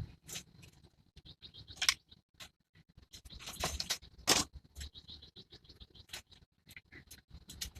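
Irregular small clicks, taps and short scrapes of objects being handled, with the loudest a little past the middle.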